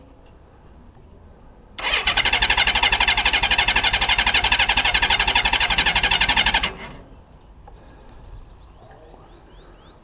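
Honda Valkyrie's six-carburettor flat-six being cranked on the electric starter for about five seconds, beginning about two seconds in, with a rapid even pulsing, then stopping abruptly without the engine catching. The engine won't fire because its carburettor float chambers are still empty after months of storage with the fuel tap closed.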